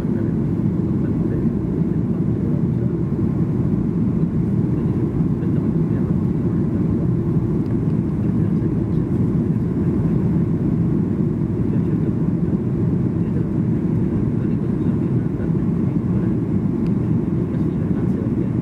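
Passenger airliner's engines and airflow making a steady low rumble that holds an even level throughout.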